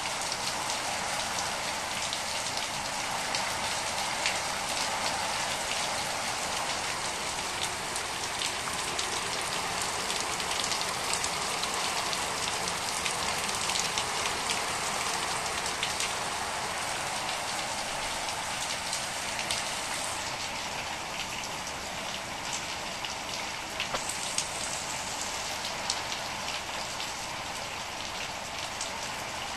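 Heavy rain falling steadily, countless drops striking wet ground and standing water.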